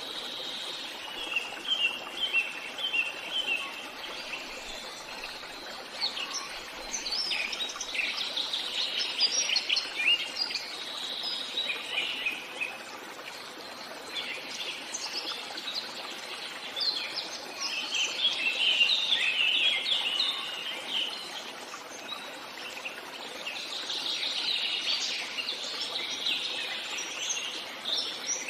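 Small birds chirping and twittering in bouts of quick high notes over a steady background hiss.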